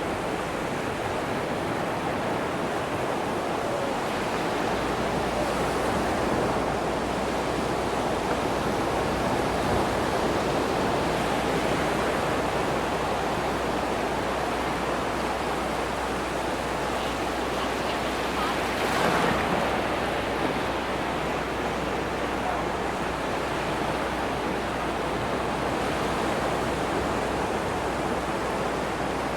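Atlantic ocean surf washing onto the beach, a steady rushing noise with one louder wave breaking about two-thirds of the way through.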